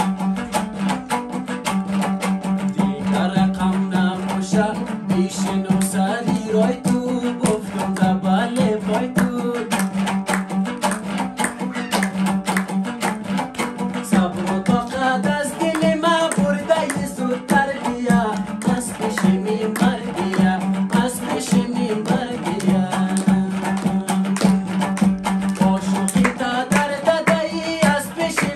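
A man singing a Hazaragi folk song to his own dambura, the two-stringed Afghan long-necked lute, strummed in fast continuous strokes over a steady low drone.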